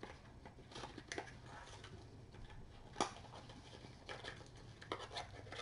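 Faint rustling with scattered light taps and clicks of small things being handled, one sharper click about three seconds in and a few more near the end.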